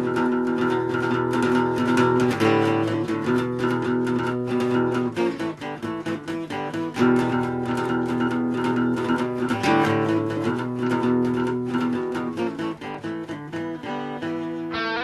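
Acoustic guitar playing a repeating picked chord pattern, the chords changing every two to three seconds.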